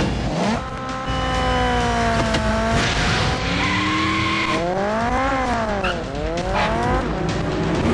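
Motorcycle engine revving hard: its pitch slides down, then rises and falls quickly twice.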